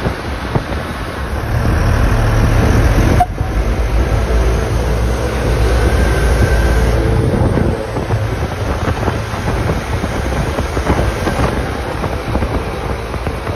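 Heavy Iveco off-road expedition trucks driving past close by, their diesel engines giving a steady low rumble.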